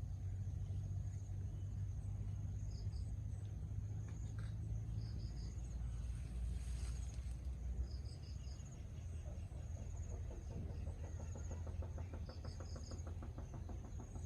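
Outdoor rural ambience: short high chirps from birds or insects repeat every second or two over a steady low rumble. Near the end there is a rapid pulsing call.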